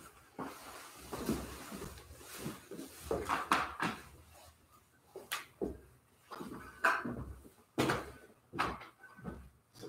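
Irregular handling noises at an altar: rustling of cloth and vestments with scrapes and several light knocks and clicks.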